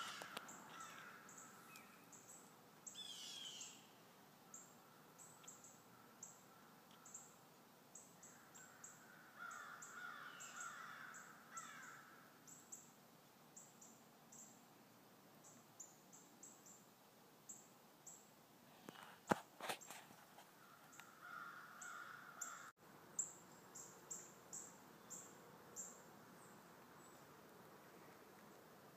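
Faint harsh bird calls, a few drawn-out caws, over a patter of short high ticks. A couple of sharp clicks come about two-thirds of the way through.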